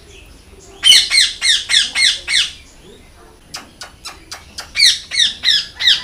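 Alexandrine parakeet squawking loudly: a quick run of about six calls, each dropping in pitch, about a second in, then a few short sharp chips, then another run of squawks near the end.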